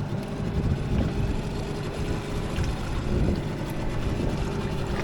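A boat engine running steadily, with wind buffeting the microphone.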